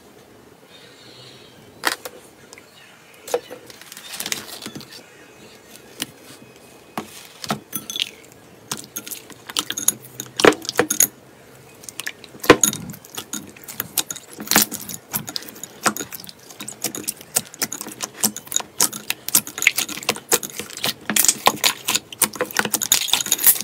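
Slime being squeezed and pressed by hand, giving sharp crackling clicks and pops that start sparse and grow thick and steady from about halfway on.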